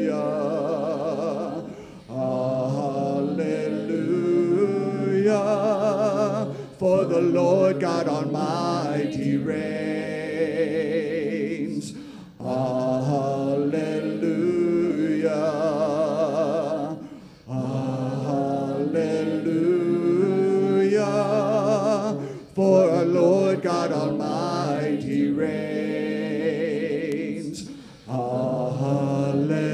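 Congregation singing a hymn a cappella, led by a man's voice on a microphone, in sustained phrases of about five seconds with brief breaks for breath between them.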